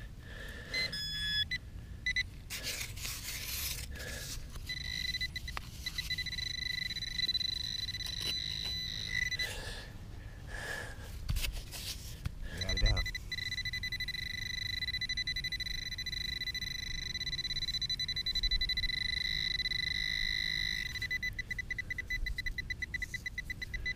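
Metal detector pinpointer probe sounding a steady high tone while held over dug soil, signalling a metal target in the dirt, with scraping of soil in between. Near the end the tone breaks into a fast, even pulsing.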